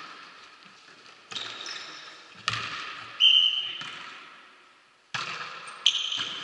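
Volleyball being struck about five times in a sports hall: sharp smacks, each followed by a long echo round the hall, with high squeaks that are likely shoes on the court floor. The sound dies away to silence a little before the last two hits.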